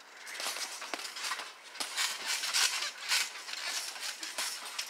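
Scuffle on a trampoline: bodies and boxing gloves knocking and rustling on the mat as one boxer grapples and punches the other. It comes as a busy run of short irregular knocks over a steady rustle, starting just after the opening moment.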